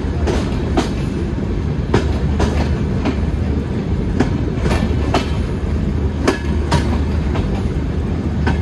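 Passenger train running along the track, heard from the coach itself: a steady low rumble with sharp wheel clicks over rail joints, irregular, about one or two a second.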